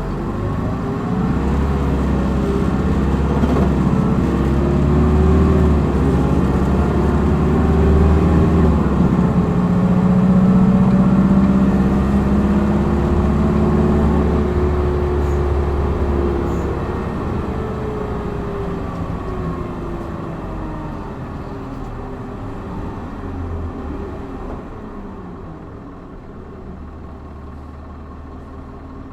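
Hino Blue Ribbon city bus's diesel engine pulling hard in power mode, heard from inside the cabin: the engine note rises and dips several times as it accelerates through the gears, is loudest about ten seconds in, then falls away in pitch and level as the bus eases off and coasts.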